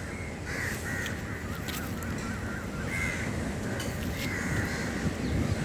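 Crows cawing, several short harsh calls spread through the clip, over a steady low rumble.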